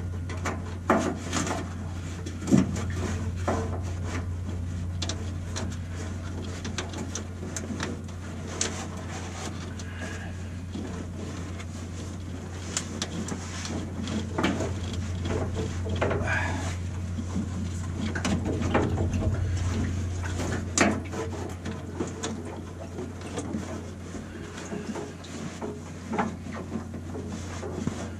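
Scattered light knocks, clicks and rubbing from hand work on the fuel filler hose and its hose clamp. A steady low hum runs underneath.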